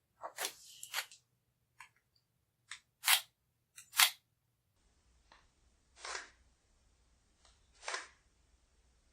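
A knife scraping the burnt tip of a soldering iron in short, separate strokes, about eight of them, the loudest two a second apart in the middle. The tip is being scraped because it is overheating and burning the solder off.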